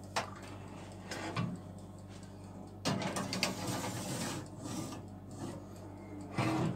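Aluminium baking pan being slid onto the wire rack of a countertop electric oven: metal scraping and rattling against the rack for about two seconds midway, with a couple of knocks before it and a bump near the end.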